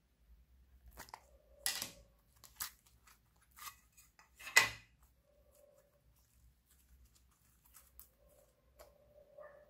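Glossy slime being lifted and pressed by hand, giving irregular sticky clicks and crackles, the loudest about halfway through. A faint hum comes and goes underneath.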